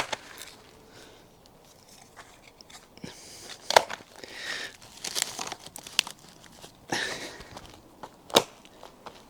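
Interlocking plastic grid shed-base panels being handled and laid in rows: several sharp plastic clicks and knocks, the loudest near the end, with scraping, crunching rustles in between.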